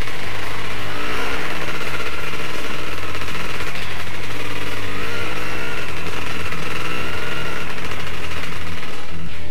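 Dirt-bike engine running along a trail, its pitch rising and falling with the throttle.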